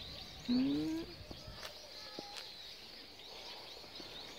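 Small birds chirping, many short high chirps running on in the background. About half a second in, a brief voice-like sound rises in pitch and is the loudest thing here.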